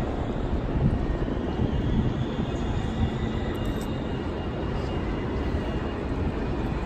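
Outdoor city ambience: a steady low rumble, with a faint high whine that rises slowly in pitch a second or two in.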